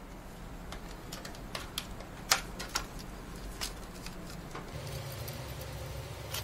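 Scattered sharp clicks and taps of plastic connectors, cables and metal brackets being handled and plugged in inside a PC case while a graphics card is moved into place. A low steady hum joins about five seconds in.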